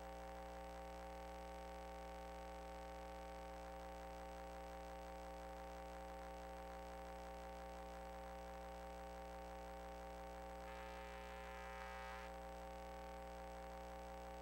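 Faint, steady electrical hum made of several fixed tones, the kind of mains hum a recording rig picks up. A faint higher-pitched tone joins briefly about eleven seconds in.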